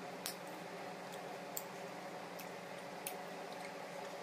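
Fingers working rice on a steel plate, giving a handful of short squishy clicks, about one a second, over a steady low hum.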